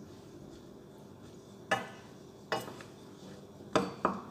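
Wooden spatula stirring shrimp in a stainless steel frying pan, knocking sharply against the pan four times, the last two close together near the end.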